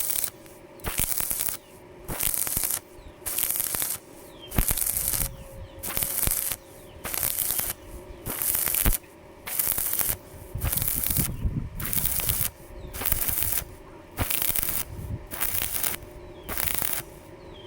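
Stick (arc) welding with a 2.6 mm electrode at 100 amps, done as repeated short stitches: the arc is struck and crackles for about half a second, then breaks, about once a second.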